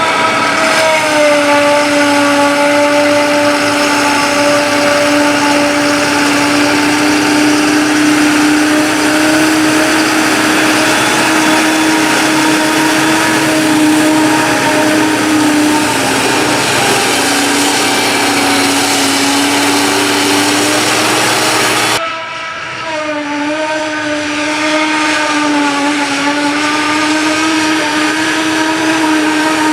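Claas Jaguar 960 forage harvester running under load as it chops green rye, a loud, steady, high-pitched machine drone. About two-thirds of the way through, the sound changes abruptly, dips a little in level, and the pitch then wavers gently.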